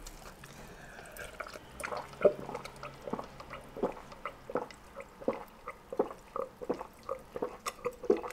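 Close-miked gulping as a woman drinks from a glass: a quick run of wet swallows, about two or three a second, starting about two seconds in.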